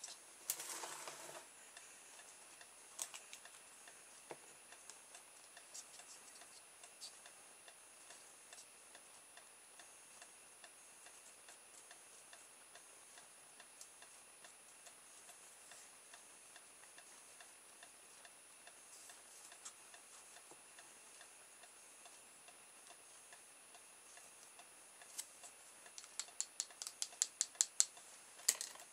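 Faint scraping and light clicks of a thin stick poking baking powder into a small hard-plastic tube over a tub of powder. Near the end comes a quick run of sharp taps, several a second, as the powder is packed tight.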